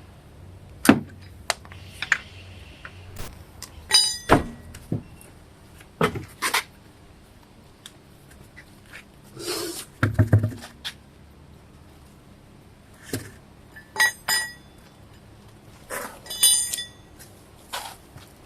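Scattered sharp metallic clinks and knocks, as of hand tools and steel parts being handled during work on a car's front suspension; three of them ring briefly, at about 4 s, 14 s and 16.5 s.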